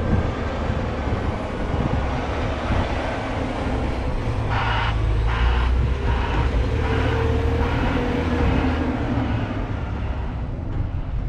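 Heavy diesel engine of a wheel loader running with a steady low rumble while loading gravel. About halfway through comes a run of about six short, evenly spaced pulses, a little over half a second apart.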